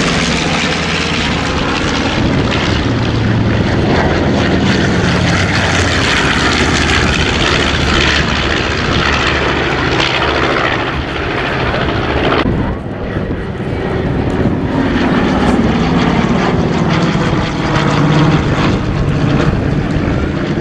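Piston-engine propeller warbirds flying over, a loud steady drone of engines and propellers; the higher part of the sound drops away about twelve seconds in and then builds again.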